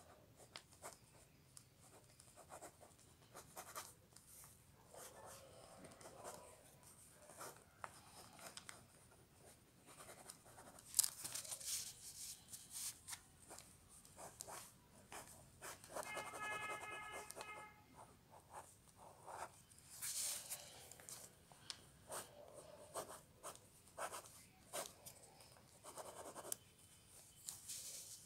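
Faint, scratchy strokes of a drawing tool sketching on paper, coming in short irregular runs. A brief pitched tone sounds about 16 seconds in.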